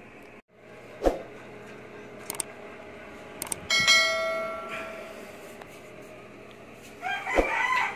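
A subscribe-button animation's bell chime, ringing out about four seconds in and fading over about a second, with a few sharp cursor clicks before it. A rooster starts crowing near the end.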